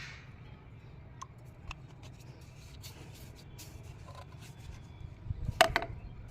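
Scattered light clicks and scrapes over a low steady hum, with a louder double click about five and a half seconds in.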